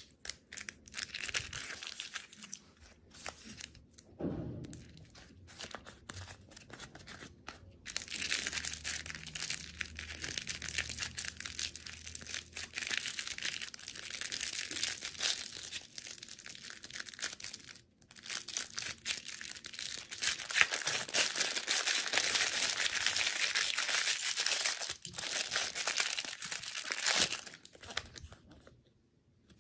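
Plastic candy wrappers being crinkled and torn open by hand: scattered crinkles at first, then a dense, steady run of crinkling and small clicks from about eight seconds in until near the end.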